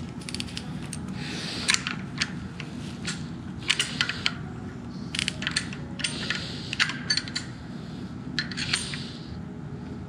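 Metal hand tools clinking as a wrench and a socket are worked on the bolts of a motorcycle's clutch lever perch: a string of sharp metallic clicks and taps, some in quick clusters.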